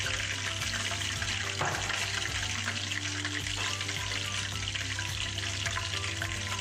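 Hot cooking oil sizzling in a nonstick frying pan, crackling steadily around loose bits of fried tilapia as metal tongs stir through it.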